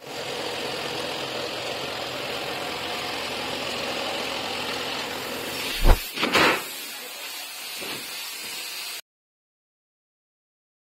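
Steady hum of workshop machinery. About six seconds in comes a heavy thump as a mattress is set down on the packing machine, followed by a short rustle of plastic film. A quieter hum follows, and the sound cuts out completely about nine seconds in.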